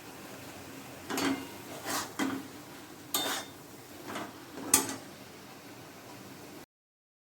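Metal utensil scraping and clinking against a cooking pan, about six short strokes with a sharp clink near the end. The sound then cuts off abruptly.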